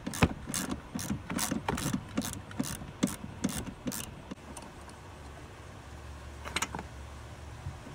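Hand socket ratchet clicking in quick strokes as a bolt on a truck's seat-belt mechanism is worked loose, about three clicks a second for some four seconds, then stopping, with one more click near the end.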